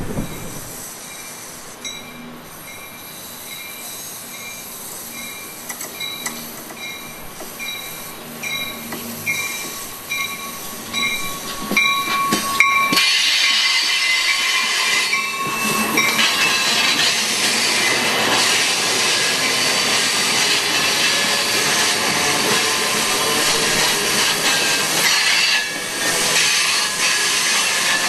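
Amtrak Capitol Corridor passenger train with an F59PHI diesel locomotive approaching and passing close by. A grade-crossing bell dings about twice a second in the first half. Then the train reaches the spot about halfway through, and the loud, steady rumble of the bilevel coaches' wheels on the rails fills the rest.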